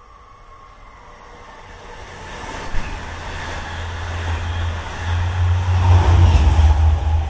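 Long Island Rail Road train approaching and passing at speed: a low rumble and rush of wheel noise that swells steadily and is loudest near the end, with a single sharp knock about three seconds in.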